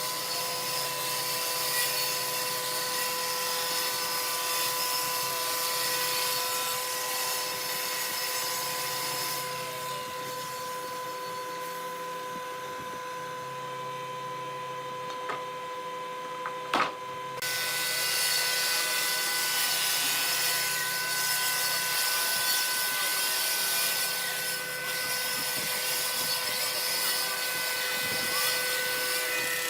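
Electric power tool running steadily while working wood, with a steady whine and a hiss. A sharp knock comes a little past halfway, after which the hiss grows louder and a higher whine is added.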